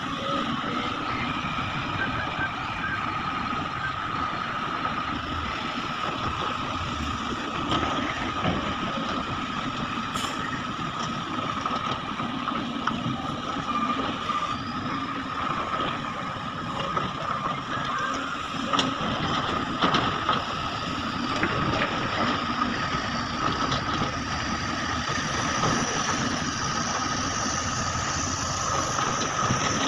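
Heavy diesel machinery (an excavator and a dump truck) running steadily, with a steady high-pitched tone throughout and a few faint knocks.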